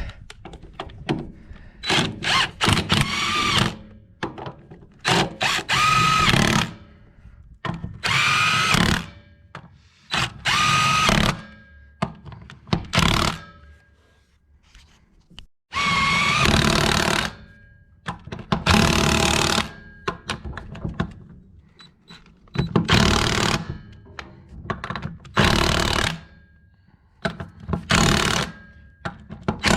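DeWalt impact wrench run in about ten short bursts of one to two seconds each, its whine rising as it hammers, tightening the lug nuts onto the wheel studs.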